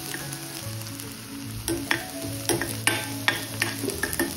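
Onions sizzling as they fry in oil in a stainless-steel pan, being sautéed until lightly browned. A ladle stirs them, knocking against the pan several times in the second half.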